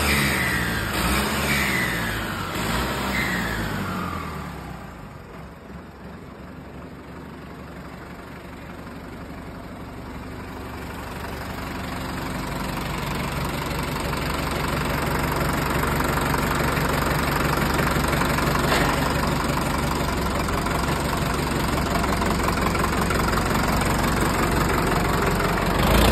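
Turbocharged Sonalika DI 750 tractor diesel engine revved in quick blips about once a second, each followed by a falling whine. It then drops to a quieter run before building into a steady, louder drone.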